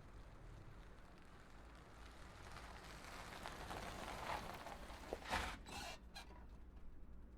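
SUV returning, its engine rumbling low while tyre and engine noise swell gradually. Two short sharp sounds follow, about five and six seconds in.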